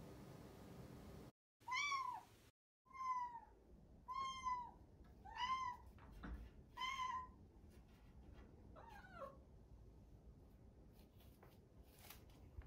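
A young silver tabby-and-white cat gives six short, chirpy meows about a second apart, each rising and falling in pitch; the last one slides down. These are the calls of a cat asking to be let through a closed gate.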